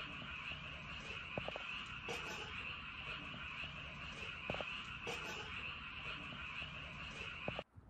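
A dense chorus of many frogs calling at once, a steady shrill din of croaking that cuts off suddenly just before the end.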